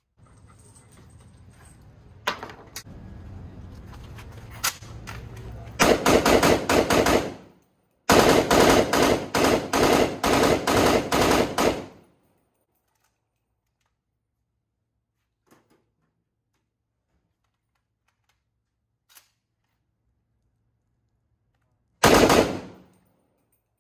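POF CW39 rifle firing fully automatic: a short burst, then a longer burst of about four seconds, and another brief burst near the end. A couple of sharp clicks come before the first burst.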